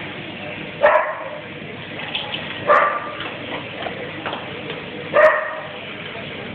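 A dog barking: three single, short barks spaced about two seconds apart.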